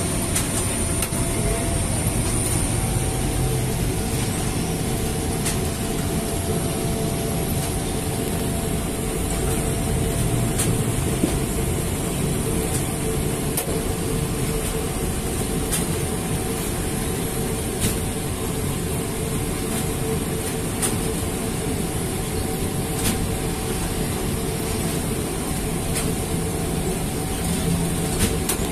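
Semi-automatic flatbread production line running: chain-driven conveyor and dough rollers making a steady mechanical rumble with a constant hum, and occasional faint clicks.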